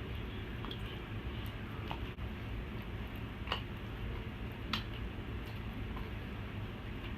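Sticky homemade slime being squished and kneaded, with small crackly clicks from the cut-up plastic straw pieces mixed into it. Two clicks stand out, about halfway through, over a steady low background noise.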